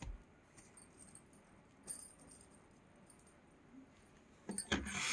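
Metal jewellery jingling as it is handled: a beaded necklace and pendant with small dangling drops. A few faint clicks come first, then a louder jingle about four and a half seconds in.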